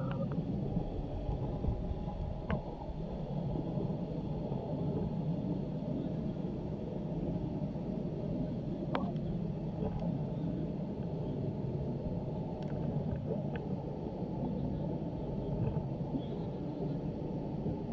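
Steady low rumble of wind buffeting the microphone, with a few faint, brief sounds from the pitch.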